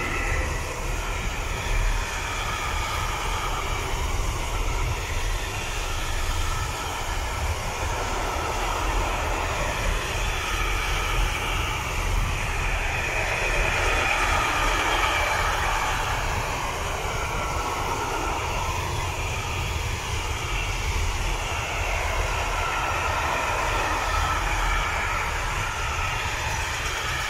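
A container freight train hauled by an electric locomotive rolling past: a steady rumble and rolling noise of the wagons' wheels on the rails, with wavering ringing tones that rise and fall as the wagons go by.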